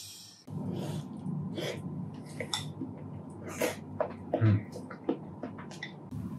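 Eating sounds from a ceramic bowl: chopsticks clicking against the bowl among close chewing and slurping noises, with a dull knock about four and a half seconds in.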